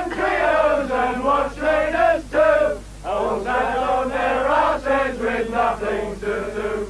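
A group of men singing together in a chant-like song, phrase after phrase with short breaks between.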